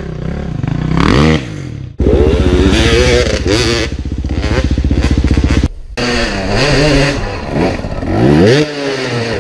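Motorcycle engines revving, the pitch rising and falling repeatedly. The sound changes abruptly about two seconds in and again about six seconds in, as different motorcycles take over.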